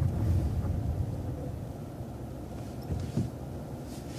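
City bus engine running low, heard from inside the bus, growing quieter over the first couple of seconds, with a short knock about three seconds in.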